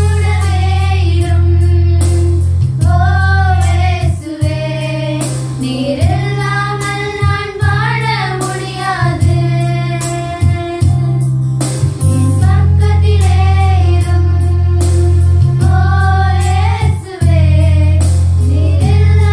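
A high singing voice carrying a devotional song over keyboard backing with a heavy, steady low bass.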